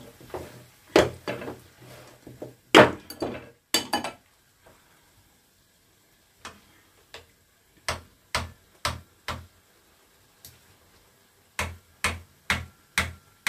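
Wooden spoon knocking against a frying pan as stir-fried squid and vegetables are stirred. A series of sharp knocks comes loudest in the first few seconds, then two runs of evenly spaced strokes at about two a second.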